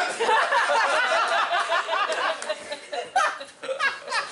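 Theatre audience laughing, many voices at once, loud, then thinning into scattered laughs after about three seconds.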